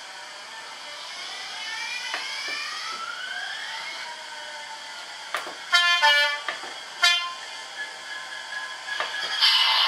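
Sound-fitted OO gauge model diesel locomotive's sound decoder playing through its speaker: rising whines in the first few seconds, then loud two-tone horn blasts twice, a little past the middle.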